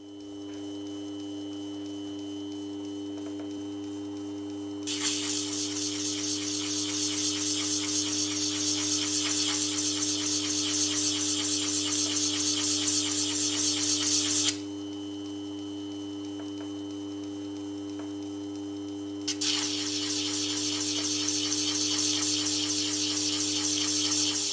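A workshop machine's motor running with a steady hum and a high whine, broken twice by long stretches of loud, gritty hissing that start and stop abruptly, the first about ten seconds long and the second about five, each growing slightly louder as it goes on.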